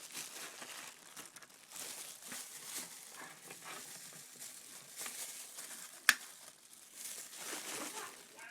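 Faint rustling and handling noises, with one sharp click about six seconds in.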